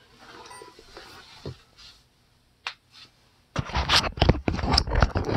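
Handling noise from a phone being picked up and moved: faint rustling at first, a single click, then loud scraping and rustling against the microphone from a little past halfway.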